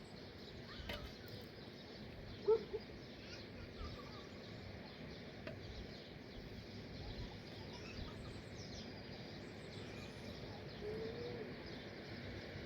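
Faint, scattered bird calls over a steady outdoor background hiss, with one brief louder blip about two and a half seconds in.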